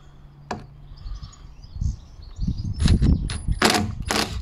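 Cordless drill-driver working the screws of a door hinge that is being reset on its frame: a low motor hum at first, then louder bursts of driving with sharp clicks and knocks in the second half.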